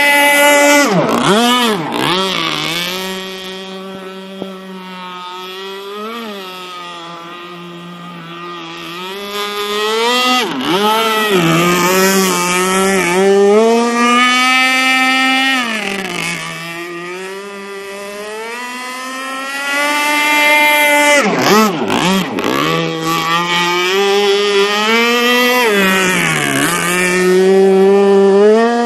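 Modified Zenoah 30cc two-stroke petrol engine of a carbon-hulled RC racing boat running at high revs. The throttle is chopped and opened again several times, so the pitch dips and climbs back, and the sound grows louder and fainter as the boat runs near and away.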